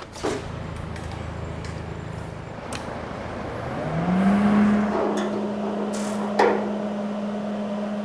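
A small electric motor running in the shop. Over a steady hum, about four seconds in, it spins up with its pitch rising, then holds an even whine.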